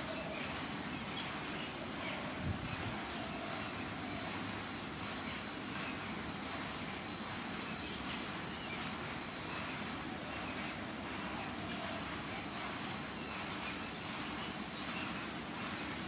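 Steady, high-pitched drone of a chorus of insects, unbroken throughout.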